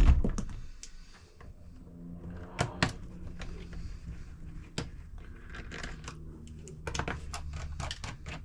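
Scattered clicks and knocks of plastic casing and small tools as an Asus K53E laptop is taken apart, over a faint steady low hum.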